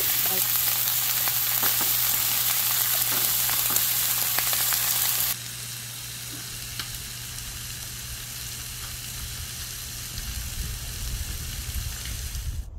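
A steady crackling hiss, dotted with small ticks, over a low steady hum. The hiss drops abruptly in level about five seconds in and carries on more quietly.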